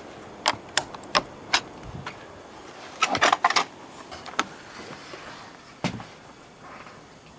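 Footsteps knocking on wood, then a screen door's latch and frame rattling as it is opened about three seconds in, and a heavier thump near six seconds as it swings shut.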